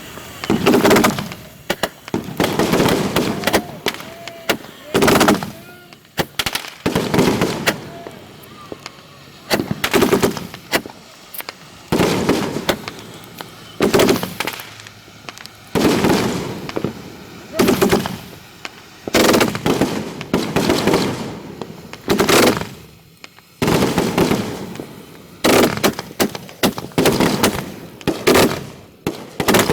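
Fireworks finale heard from right at the launch site: loud sharp bangs of shells going off in quick succession, about one every second or two, each trailing off before the next.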